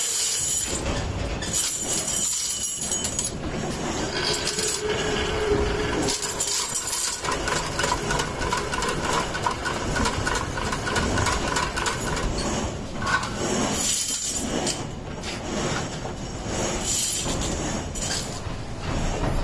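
Masses of plated steel U-hooks clattering and jingling against each other in a metal basket, partly while being spun in a drum machine, with a steady machine hum underneath. The metallic rattle is continuous and dense with small clicks.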